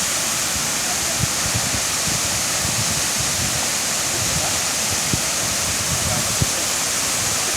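Llanos de Cortez waterfall: steady, loud rush of falling water, with a few brief low bumps.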